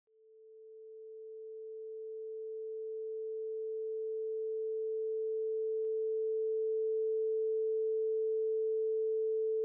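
Television test-pattern tone: a single steady pure tone that fades in from silence over the first several seconds, then holds level.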